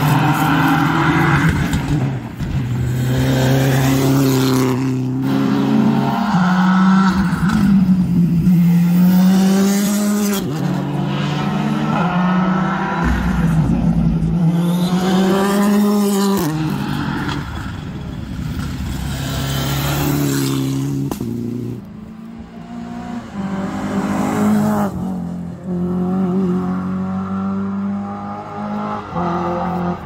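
Rally car engine at full throttle, its pitch climbing and then dropping sharply again and again as it shifts up through the gears.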